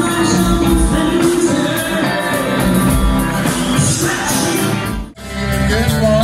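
Live rock band playing, a woman singing lead over drums, electric guitar and keyboards. About five seconds in the music breaks off abruptly and a different guitar-led blues-rock performance takes over.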